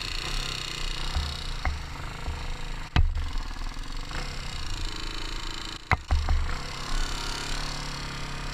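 Kawasaki KLR250's single-cylinder four-stroke engine pulling away and riding, with wind buffeting the microphone. Two sharp knocks, about three seconds in and again about six seconds in, are the loudest sounds.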